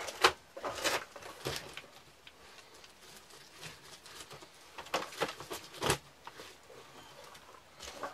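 Footsteps and light knocks in a small cluttered room: a few steps in the first second and a half, quiet handling at a target while darts are retrieved, then more steps and knocks around five to six seconds in.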